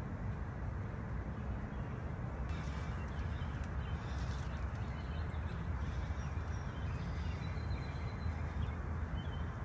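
Steady low outdoor background rumble, with a few faint high chirps in the second half.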